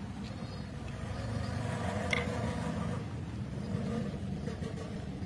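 A steady low hum, with a single light metallic clink about two seconds in.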